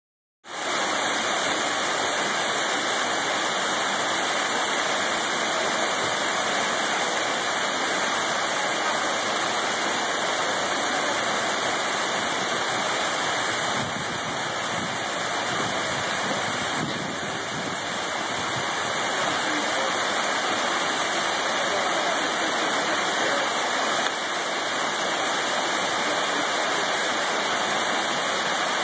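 A small artificial waterfall splashing steadily over rocks: an even, unbroken rush of water.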